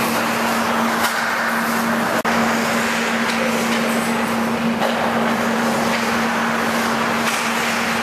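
Ice hockey practice: skates scraping the ice, with sticks and puck clicking now and then, over a steady noise and a constant low hum.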